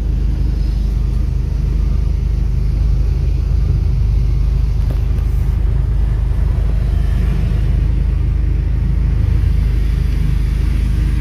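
Steady low rumble of a 1997 Honda Accord Cielo heard from inside its cabin while moving slowly in traffic: engine and road noise.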